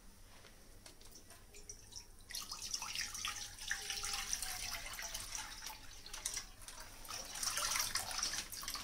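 Milk poured from a plastic pouch into a nonstick kadhai, a steady splashing pour that starts about two seconds in.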